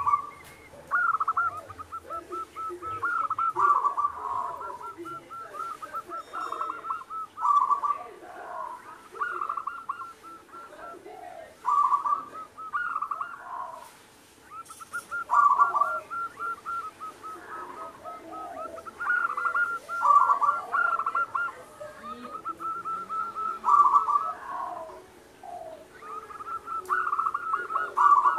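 Zebra dove cooing, phrase after phrase every couple of seconds, each phrase a rapid run of staccato, trilled notes.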